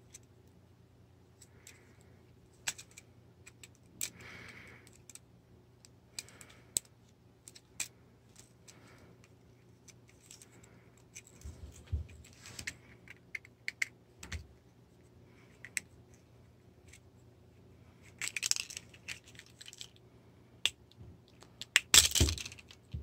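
Hard plastic parts of a Fingerlings Untamed Raptor toy clicking, snapping and scraping as it is handled and pried apart by hand. Scattered sharp clicks come with short runs of scraping, and the loudest run comes near the end.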